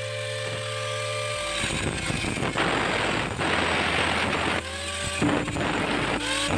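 Angle grinder with a thin cutoff disc cutting through round steel tubing, a harsh grinding noise over the motor's whine. Near the end the whine sweeps up in pitch several times as the disc eases off the cut and the motor speeds back up.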